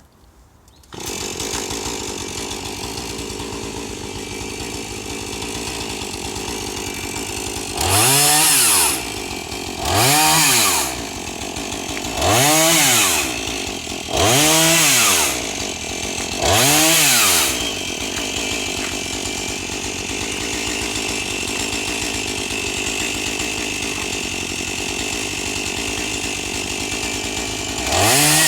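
Two-stroke chainsaw engine idling, with the sound coming in about a second in. It is revved in five short bursts a couple of seconds apart, each rising and falling in pitch over about a second, then idles again and is revved once more near the end.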